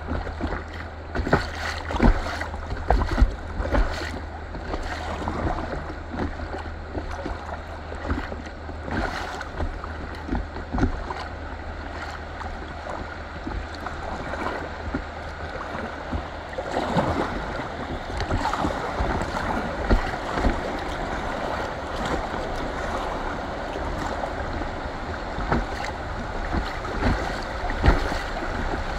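Fast river water rushing and splashing around an inflatable kayak, with frequent short splashes and knocks against the hull and a low wind rumble on the microphone. The rush grows fuller about halfway through as the kayak runs into choppier rapid water.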